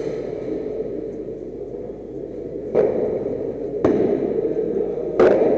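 Padel ball shots in a rally: three sharp knocks, roughly a second apart in the second half, over a steady background hum.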